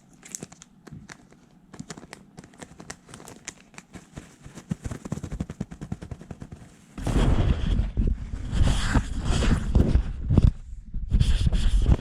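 ASMR triggers close on the microphone: rapid, irregular light tapping for the first seven seconds, then louder scratchy rubbing, as of brushing or wiping right against the mic, with a brief pause near the end.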